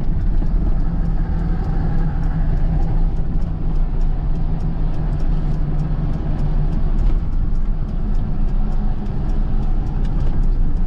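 Engine drone and road noise heard from inside a delivery truck's cab while driving: a steady low hum.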